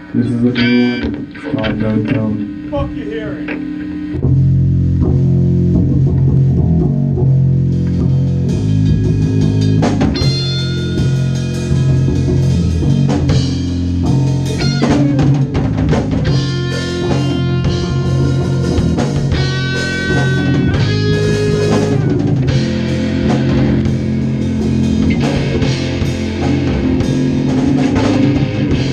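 A ska-punk band jamming live: electric bass, electric guitar and drum kit playing together. A sparser, quieter opening gives way about four seconds in to the full band playing loud.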